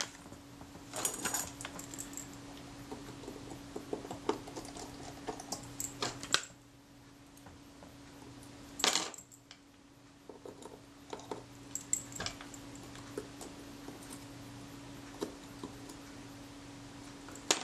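Light metallic clicks and clinks of steel tweezers and tiny screws against a Kodak Retina IIIC's top plate as the two screws of the rewind bush are set in place, with a few sharper clinks about one, six and nine seconds in.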